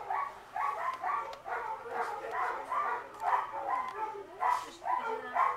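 Dogs barking over and over, about two or three short barks a second.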